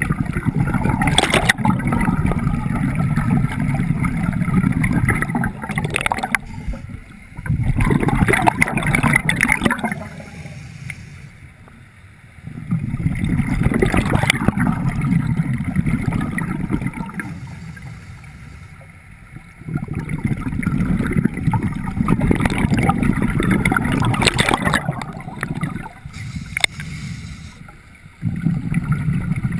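Scuba diver breathing through a regulator underwater: the exhaled bubbles make a low gurgling rumble in bursts of several seconds, with quieter gaps between breaths. The bursts repeat about every seven seconds, about four and a half breaths in all.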